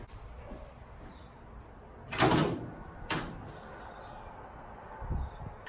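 Workshop handling noises: a loud scrape about two seconds in, a sharp knock a second later, and a few low thumps near the end, over a steady background hum.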